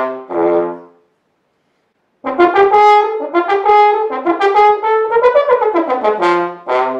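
French horn playing a solo melody: a phrase ends about a second in, then after a short pause the horn comes back with a longer phrase of flowing notes that falls to low notes near the end.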